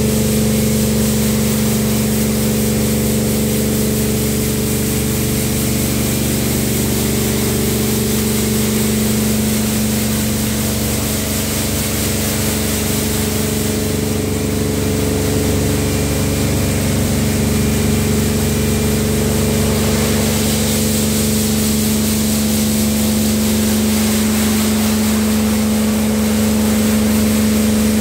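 Tammermatic T700 Lux touchless car wash in operation: a steady, loud pump and motor hum with a continuous hiss of high-pressure water jets spraying the car.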